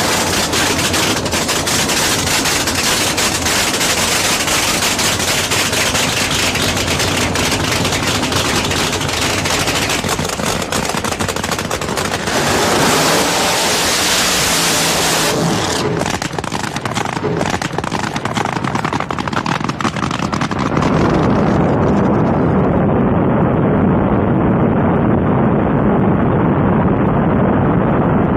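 Nitromethane-fuelled funny car engines (supercharged V8s) running very loud with a rapid, rattling crackle, including during burnouts. The sound changes abruptly several times, and about 21 seconds in it turns duller with a deeper rumble.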